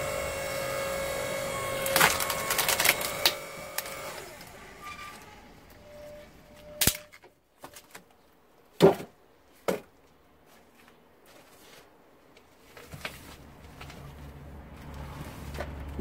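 AL-KO KHS 5204 electric hydraulic log splitter running under load with a steady whine as the ram drives a log onto the wedge. About two seconds in, the log splits with loud cracks and crackling, and the whine fades soon after. Three sharp wooden knocks follow as split pieces are handled, and the machine's low hum returns near the end.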